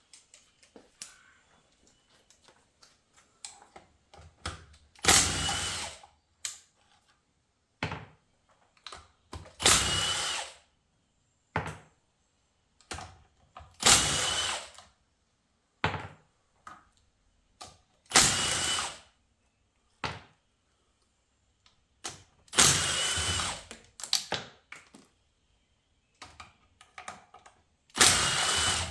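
A power tool spinning out the 12 mm bolts on a transmission case in short bursts, about six times, each under a second long. Small metallic clicks from handling the bolts and socket come in between.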